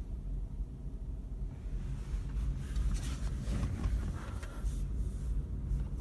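Delaware and Hudson diesel locomotive engine running with a steady low rumble, which the filmer takes for misfiring, perhaps from faulty injectors. A stretch of rubbing noise sits over it from about two to five seconds in.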